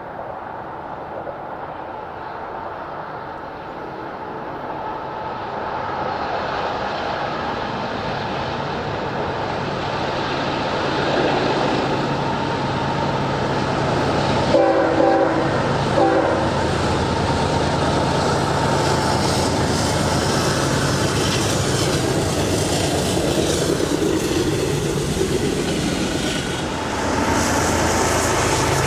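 BNSF intermodal train led by diesel locomotive 6252 approaching and passing, its engines growing louder. The locomotive's horn gives two short blasts about halfway through as a salute, and then the cars roll by with steady wheel-and-rail noise.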